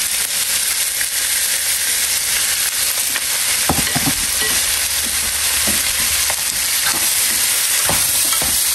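Cubed beef stir-frying in a hot oiled pan with garlic and onion: a loud, steady sizzle as it is stirred, with a few short knocks against the pan.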